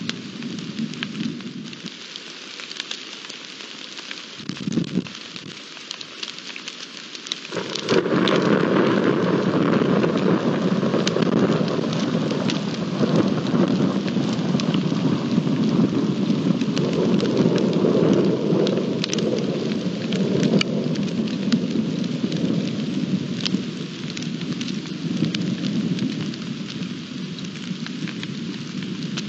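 Steady rain falling, with scattered ticks of single drops. About eight seconds in, the sound abruptly turns louder and deeper, with a low rumble of thunder under heavier rain.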